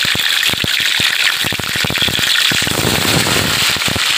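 Catfish deep-frying in hot oil: a steady sizzle with many sharp crackling pops as the oil spits.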